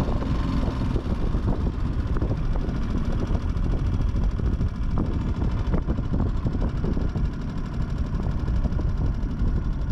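Mercury F 3.5 single-cylinder four-stroke outboard motor running steadily, driving an inflatable PVC boat along the river.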